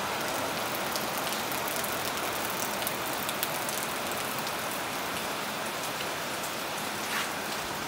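Downpour falling on a corrugated zinc roof: a steady hiss of rain with scattered sharp drop ticks.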